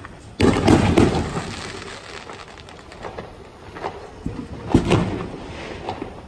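Fireworks going off. A sudden loud burst about half a second in crackles and fades over a second or two, and a second sharp bang comes near five seconds in.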